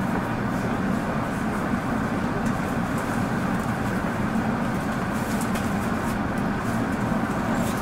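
Steady hum inside a Tokyo Metro Ginza Line 1000 series subway car standing at the platform just before departure, with a few faint clicks about five seconds in and again near the end.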